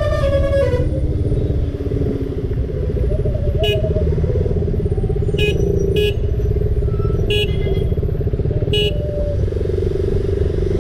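Bus musical horn playing a stepping multi-note tune that ends about a second in, over the bus's diesel engine running steadily. Five short sharp pips sound at intervals through the middle.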